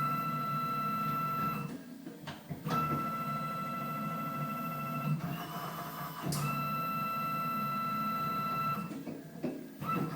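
Emco Concept Mill 55 CNC mill's drive motors whining with a steady high tone over a low hum as the machine moves through an automatic tool change. The whine stops three times for about a second, once shifting briefly to a higher tone, as one move ends and the next begins.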